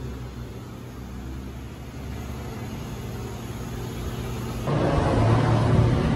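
A steady low mechanical rumble. About three-quarters of the way through, it gives way abruptly to a louder rushing noise of wind buffeting the microphone.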